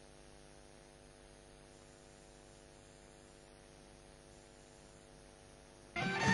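Faint steady mains hum with hiss. Near the end, Middle Eastern band music starts abruptly.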